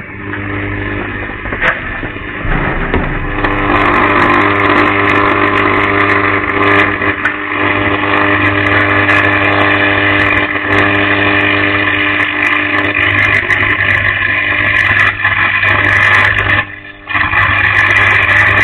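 A sharp crack, then a damaged power cable arcing in the trench: a loud, continuous electrical buzz with a strong hum and crackling. It stays burning throughout, dropping out briefly near the end and then resuming.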